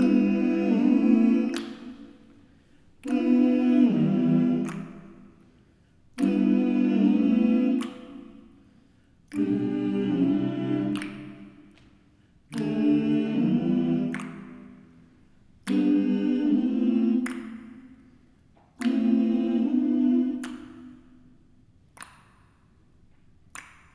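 Men's a cappella vocal ensemble singing seven short chords, one about every three seconds, each fading away before the next. Two faint ticks follow near the end.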